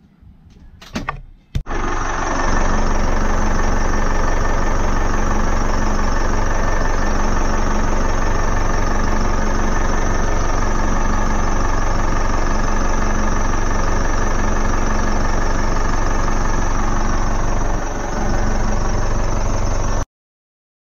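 Volvo Penta D4-300 four-cylinder marine diesel engines starting up about a second and a half in and then idling steadily: the first start after a fresh oil and filter change. The sound stops abruptly near the end.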